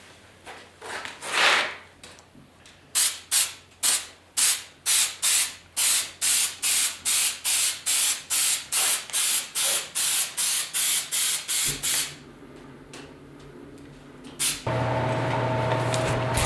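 Aerosol spray adhesive sprayed in a long run of short bursts, about two a second, as the seat cover is glued to the pan. Near the end a steady machine hum with a clear tone starts.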